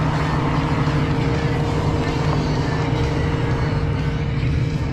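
A steady engine drone held at one constant speed, a low hum with a fainter higher tone above it.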